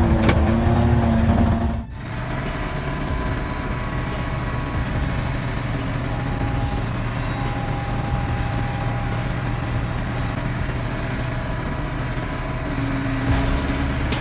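Heavy machinery engine running. An engine drone with a clear pitch breaks off abruptly about two seconds in and gives way to a steadier, rougher low engine rumble.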